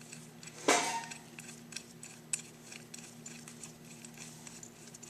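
Small metal clinks and ticks of a bolt being fitted by hand into a tractor carburetor body, with one sharp, ringing clink about a second in and scattered lighter clicks after it. A steady low hum runs underneath.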